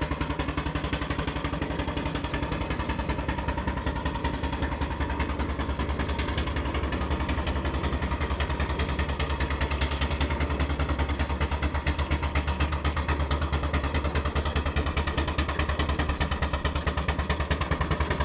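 Miniature coal-fired steam traction engine running on the road under steam, its exhaust and motion giving a fast, even train of beats over a steady low hum.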